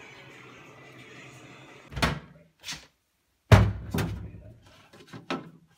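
Fridge door and plastic crisper drawer being opened and handled: a few sharp knocks, then a louder thud about three and a half seconds in followed by several lighter knocks. A low steady hum runs under the first two seconds.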